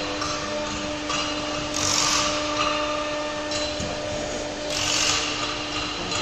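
CNC router spindle running steadily while its bit routes MDF, with the cutting noise swelling louder a few times.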